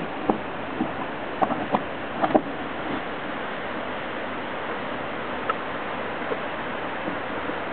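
Steady rushing hiss of outdoor background noise on a small camera microphone, with a cluster of short clicks and knocks in the first two and a half seconds as the camera is handled and swung around.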